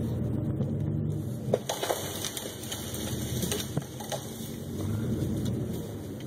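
An old Ford pickup's engine running steadily, with scattered sharp cracks and snaps of breaking wood about a second and a half in and again around three and a half to four seconds in.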